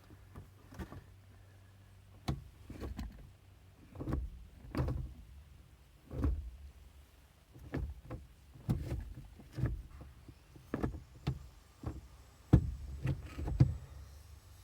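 Manual gear lever of a Mazda 3, fitted with a weighted aluminum shift knob, being moved through the gears: a dozen or so short clunks and knocks at uneven intervals as the lever is pushed into and out of each gate.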